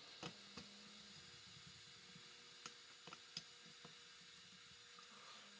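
Near silence: steady faint hiss with a handful of light, scattered clicks as small metal parts are handled against a chainsaw engine.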